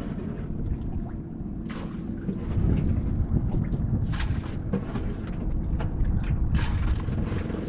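Wind buffeting the microphone over a steady low engine hum from a small fishing boat, with louder gusts about two, four and six and a half seconds in.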